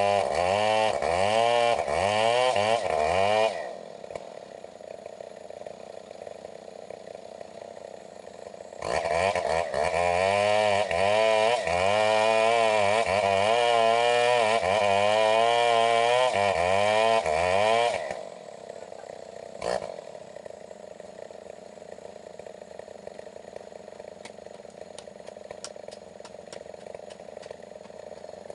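Stihl 070 two-stroke chainsaw revving hard with its pitch wavering under load as it cuts wood, dropping to a steady idle about three and a half seconds in. It revs and cuts again for about nine seconds from about nine seconds in, then settles back to idle, with a single click shortly after.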